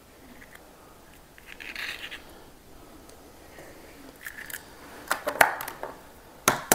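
Eggshell halves and a plastic egg tray clicking and tapping as eggs are separated by hand. A soft rustle comes about two seconds in, then a run of sharp clicks, with the loudest taps a little past the middle and again near the end.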